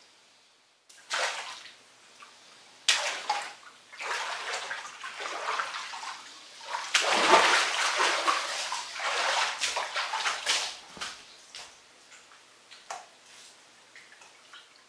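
Bathtub water splashing and sloshing as a person moves and stands up in a full tub. The splashing comes in surges, is loudest about seven seconds in, then dies down to small sloshes near the end.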